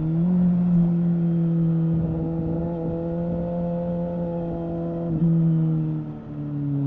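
2017 Suzuki GSX-S750's inline-four engine through a Yoshimura R11 exhaust with the dB killer removed, pulling steadily under way. The note breaks briefly about five seconds in and settles to a lower, steady pitch near the end.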